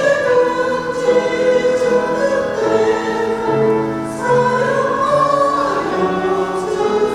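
Women's church choir singing a Korean hymn in sustained, held notes over instrumental accompaniment.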